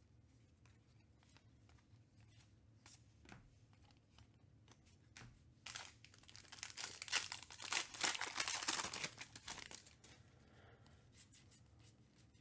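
Trading card pack wrapper being torn open and crinkled for about four seconds, starting a little past the middle. Before it come faint light clicks of cards being handled.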